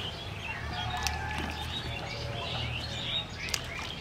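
Small birds chirping and twittering, many short overlapping calls, with a couple of sharp clicks and a faint steady low hum beneath.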